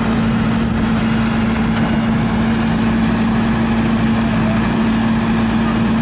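Engine of a TS80 tracked skid steer loader running steadily as the machine drives, with a constant low hum.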